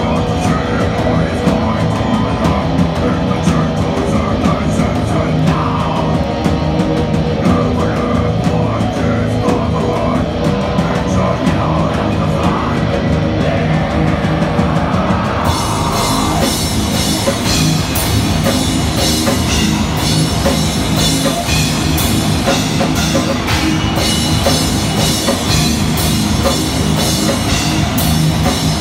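A heavy metal band playing live and loud, with distorted guitars, bass and drums. About halfway through, the sound turns brighter and denser at the top.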